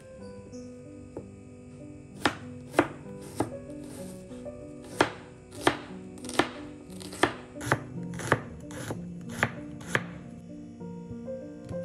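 Kitchen knife slicing an onion on a plastic cutting board: about a dozen sharp knocks of the blade on the board, a little under one a second at first and quickening to about two a second, starting about two seconds in.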